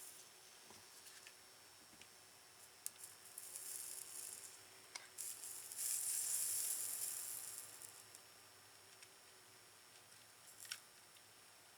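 Flux sizzling as a soldering iron heats spliced copper wires: two hisses of a second or two each, the second louder, with a few light clicks.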